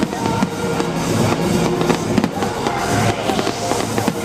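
Fireworks going off in rapid, irregular bangs and crackles over loud music from a festival sound system.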